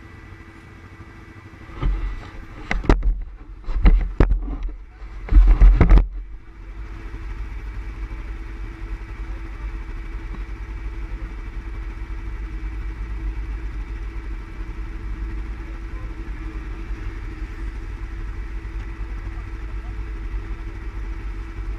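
ATV engine sound: a few loud, short bursts in the first six seconds, then a steady low running hum for the rest.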